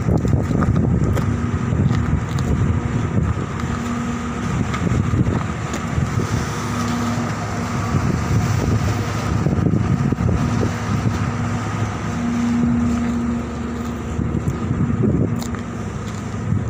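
Diesel engines of heavy earthmoving machines working coal in a ship's hold: a steady low rumble with a humming tone that comes and goes.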